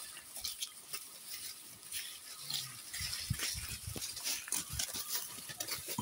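Goat kids browsing on cut leafy branches: leaves and twigs rustling and crackling in irregular snaps as they pull and chew, with a few low thuds from about three seconds in.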